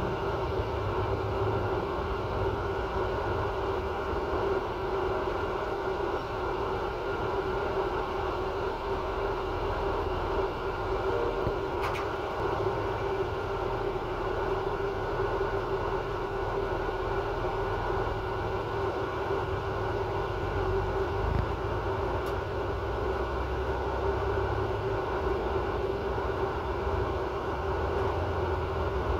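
Regional train running steadily along the line, heard from inside its rear driver's cab: a constant low rumble with a steady hum over it.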